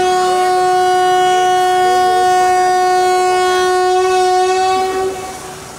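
WAP-4 electric locomotive's horn sounding one long, steady, single-pitched blast of about five seconds, fading out near the end, given as it leaves the station.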